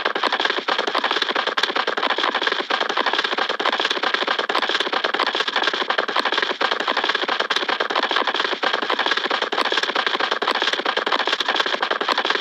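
Cartoon-style running sound effect: a rapid, continuous clatter of many small quick hits, even and unbroken.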